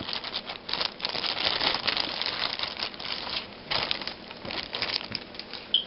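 Plastic packaging crinkling and crackling in irregular bursts as it is handled and opened around a portion of raw chicken, with a brief high squeak near the end.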